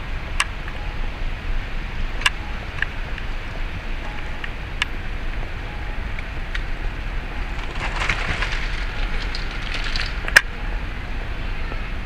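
Outdoor street ambience: a steady low traffic rumble, with scattered sharp clicks and a brief patch of crackling hiss about eight seconds in, ending in one loud click.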